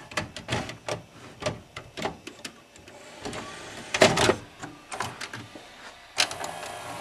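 VHS cassette pushed by hand into the front-loading carriage of a Sony SLV-400 VCR, with repeated plastic and metal clicks and clunks, the loudest about four seconds in. About six seconds in, a motor starts running steadily as the carriage begins taking the cassette in.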